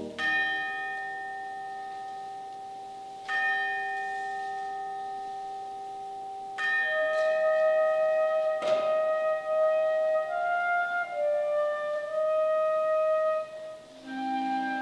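Orchestral chimes (tubular bells) struck four times, about three seconds apart at first, each note ringing on and slowly fading. About seven seconds in, a solo flute melody in long, smooth notes enters over the ringing chimes, in a slow hymn setting for concert band.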